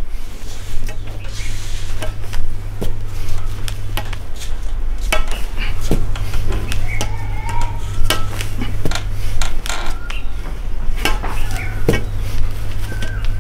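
Iron weight plates clinking and clanking on a loaded barbell as it is lifted and lowered in repeated reps, in irregular sharp knocks, some ringing briefly.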